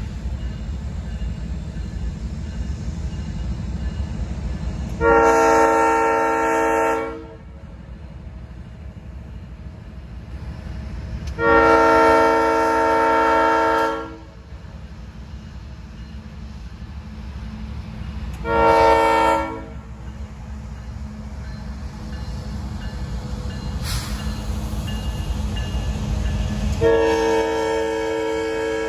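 Diesel freight locomotive's multi-chime air horn sounding four times, long, long, short, long, the grade-crossing pattern. Under it is the steady low rumble of the approaching locomotives and train.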